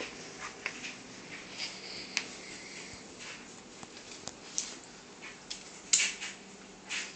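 Scattered short crinkly rustles and light clicks from two cats playing with a toy mouse around plastic shopping bags, the loudest about six seconds in, over a faint steady hum.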